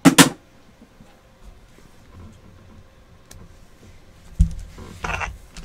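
A sharp knock as a boxed card pack is set down on a table, then faint handling noise and a soft thump about four and a half seconds in as a plush toy is picked up and handled.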